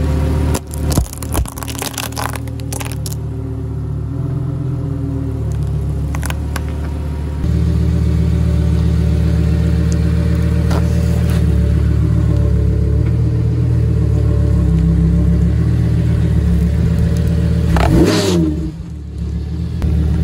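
A car engine idling steadily beside the wheel, with a quick run of sharp crackling crunches in the first few seconds as walnut shells are crushed under the tyre. Near the end comes a short squeal that falls in pitch.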